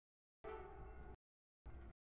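Freight locomotive air horn sounding a steady chord. The audio is chopped into two pieces with dead silence between them: one starting about half a second in and lasting under a second, and a brief one near the end.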